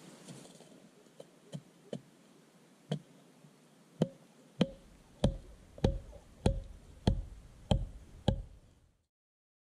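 Knife blade chopping into a green bamboo stem: a few light knocks, then a steady run of sharp knocks about three every two seconds, each with a short hollow ring, ending abruptly.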